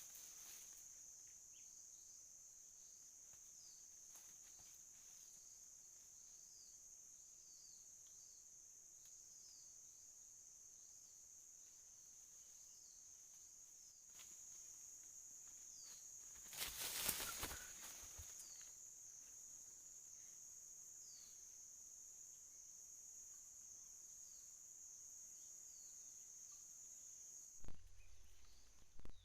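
Faint, steady high-pitched insect drone with short falling chirps repeating every second or two. A brief rustle about seventeen seconds in.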